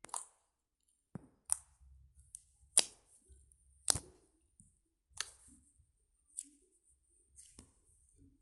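Slime being worked by hand, giving a string of sharp clicks and snaps at uneven spacing, about one a second.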